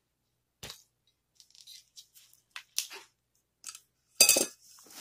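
Small objects being shifted and set down on a hard surface: scattered light clicks and taps, with one louder clinking knock about four seconds in.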